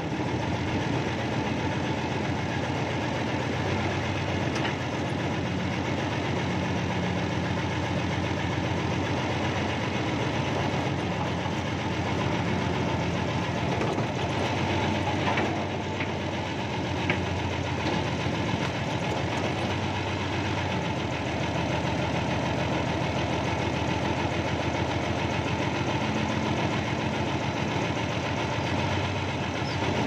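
Backhoe's diesel engine running steadily, heard from inside the operator's cab, with an even, fast-knocking engine pulse.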